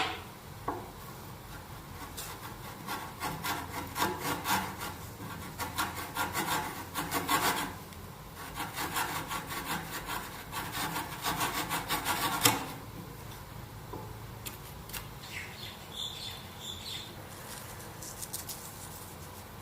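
Wood being cut by hand with a tool, a quick run of repeated strokes that is loudest from about two seconds in and drops off sharply about twelve seconds in, with fainter scattered strokes after that.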